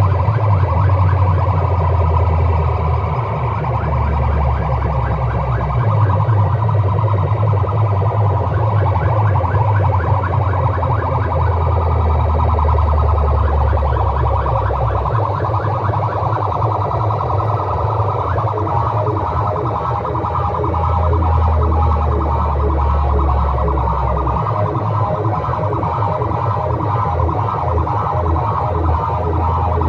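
Loud, distorted DJ music blasted through large box-speaker sound rigs: a fast-pulsing, siren-like synth line over heavy bass that cuts in and out every few seconds.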